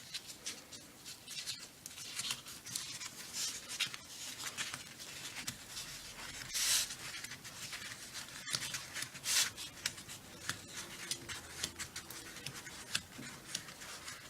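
Sheet of construction paper rustling and crinkling in short scratchy bursts as it is rolled up by hand, with a couple of louder rustles midway.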